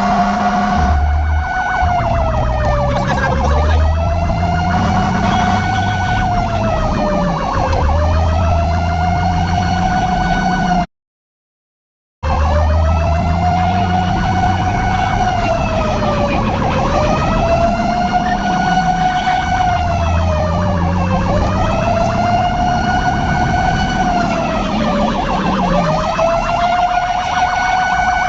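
Emergency vehicle siren wailing, its pitch sweeping slowly up and down about once every four seconds. The sound cuts out completely for about a second near the middle.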